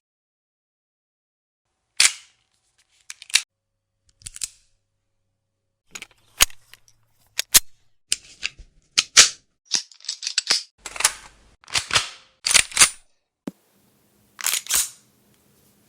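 Handgun sound effects: a run of short, sharp clicks and snaps, spaced out at first and then coming in quick clusters from about six seconds in, with a last pair after a short pause near the end.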